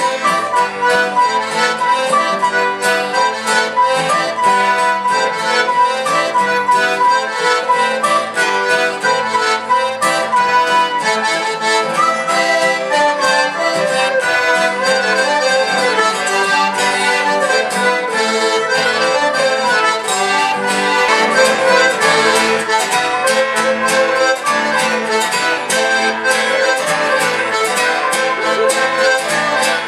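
Traditional Breton fest-noz dance tune played instrumentally on accordion and fiddle, backed by acoustic guitar, with a steady beat.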